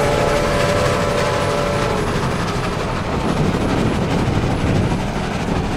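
Steam train running along the railway below, a continuous rumbling noise, with a steady held tone that fades out about two seconds in.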